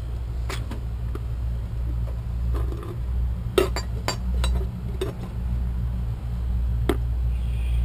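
A handful of light, sharp clicks and clinks of PVC conduit pieces and glue cans being handled, spread irregularly over several seconds, over a steady low hum.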